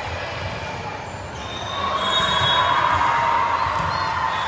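Indoor volleyball play in a gym: sneakers squeaking on the court floor over low thuds of play, getting louder about two seconds in.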